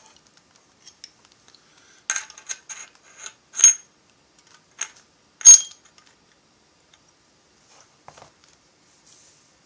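Small metal parts clinking and knocking together: a run of sharp metallic clicks starting about two seconds in, two louder ringing clinks near the middle, then a few faint taps.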